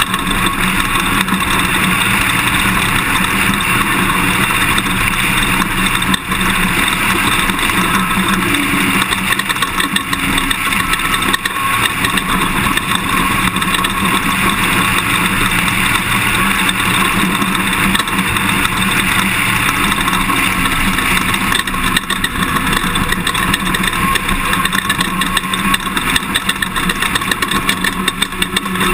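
Toyota Tundra pickup driving an off-road course: steady engine and tyre noise with constant small knocks and rattles from the rough ground.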